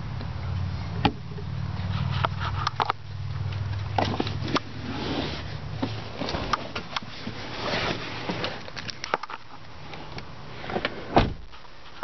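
Handling noises on a 2009 Ford Escape XLT: a scatter of clicks and knocks, then a car door shutting with a heavy thump about eleven seconds in. A low hum runs underneath and fades out about halfway through.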